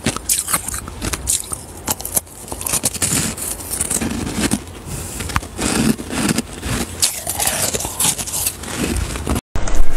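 Close-up crunching and chewing of a mouthful of frosty ice: a fast run of sharp crackles and crunches. The sound drops out briefly near the end.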